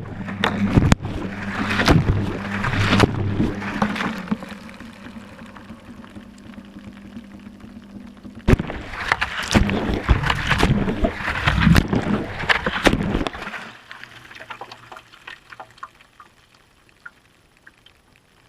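Whirlpool washing machine drum tumbling a wash load, heard from inside the drum: water sloshing and splashing with knocks as the drum turns, over a steady low motor hum. Two spells of tumbling, the second ending about 13 seconds in, after which it goes much quieter.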